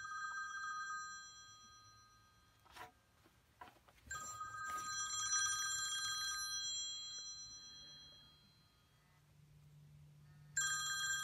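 A bell-like ringing of several steady high tones, heard three times: one fading out about a second in, a longer one starting about four seconds in and dying away slowly, and a short one near the end.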